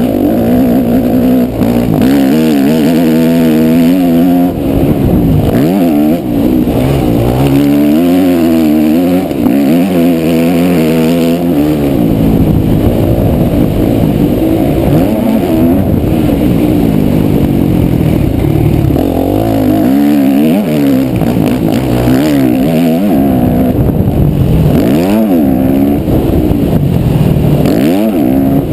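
Yamaha motocross bike's engine being ridden hard, its pitch climbing under throttle and dropping again and again as the rider shifts and backs off, with wind rush, picked up close through a vented action-camera case.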